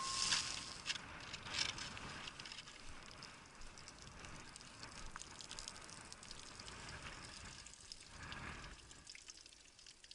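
Water gushing and splashing out of plastic gallon water jugs burst by a 10mm pistol round, with the shot's ring dying away at the very start and a few sharp clicks in the first two seconds.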